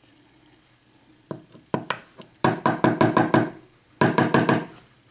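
Cylinder lock being knocked against a hard surface to shake a pin and wafer out of its chamber: a couple of single knocks, then two quick runs of sharp knocks, about seven a second.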